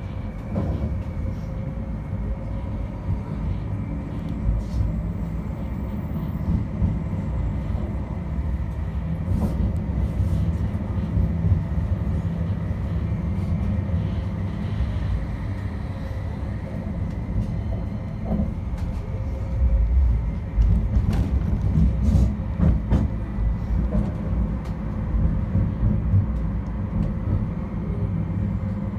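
Inside a West Midlands Metro CAF Urbos 3 tram in motion: a steady low rumble from the wheels and running gear on the rails, with a faint steady whine and scattered light clicks. The rumble swells for a few seconds about twenty seconds in.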